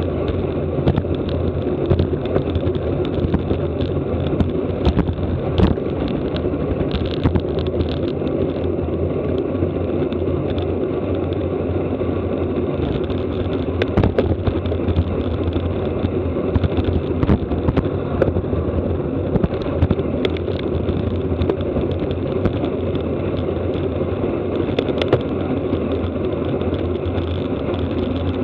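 Steady wind rush and road noise of a road bicycle racing at speed, with frequent sharp little clicks and rattles.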